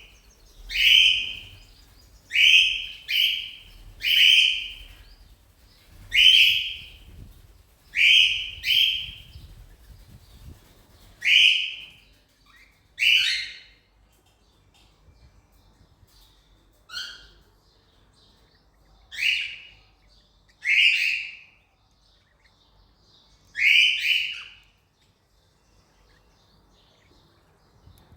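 Cockatiel calling: about fourteen short, loud calls, one every second or two and sometimes in quick pairs, which stop a few seconds before the end.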